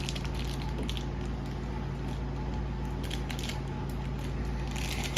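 A small plastic toy package being handled: a few faint clicks and rustles over a steady low hum.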